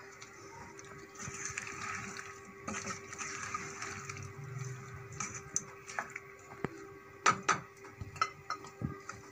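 A spatula stirring chopped potatoes and green bell peppers in a pan, a rustling, scraping noise, followed by a run of sharp knocks of the spatula against the pan, the loudest two about seven seconds in. A faint steady hum runs underneath.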